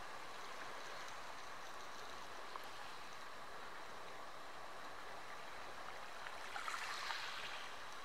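Calm sea lapping gently at a sandy, pebbly shore, a steady soft wash of water, with a small wavelet washing in and fizzing on the sand about seven seconds in.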